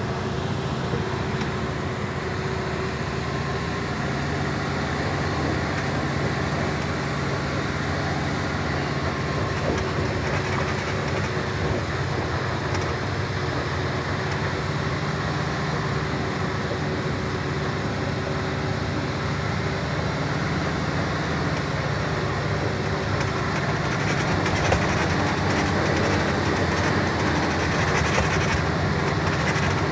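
MAN TGS 6x6 truck's diesel engine running steadily under way, with tyre and road rumble from a gravel road, heard inside the cab. It grows a little louder about three-quarters of the way through.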